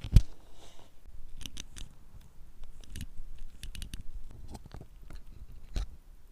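Small irregular clicks, taps and scrapes of tools handling a wristwatch during repair work, with a dull knock just after the start and another a little before the end.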